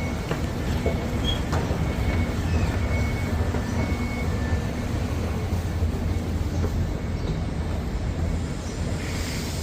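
Train at a station giving a steady low rumble, with a few faint brief high squeaks in the first half.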